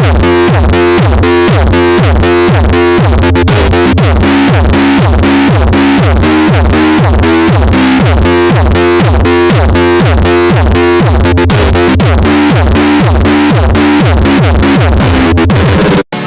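Custom Emergency Alert System alarm tone: a loud, harsh synthesized signal of short falling electronic tones repeating at an even, fast rate. It cuts off abruptly just before the end.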